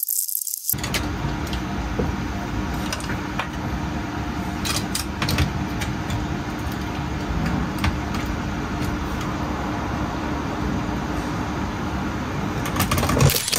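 Steady hiss-like noise with a faint low hum, broken by a few sharp clicks around the middle as hard plastic figure parts are handled. The noise starts abruptly and cuts off sharply at the end.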